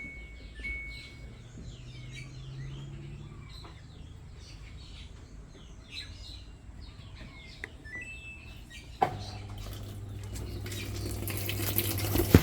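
Samsung automatic washing machine starting its fill: a sharp click about 9 s in, then a steady low hum and the growing rush of water pouring into the drum. Faint bird chirps are heard before it.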